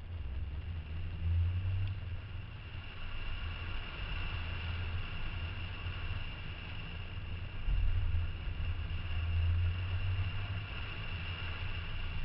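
Car driving along a road: a continuous low engine and road rumble that swells twice, over a steady hiss.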